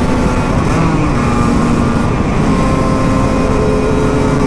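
Two-stroke single-cylinder motorcycle engine (Husqvarna SM 125) running at a steady pace under way, its pitch rising slightly in the second half, with wind noise over the microphone.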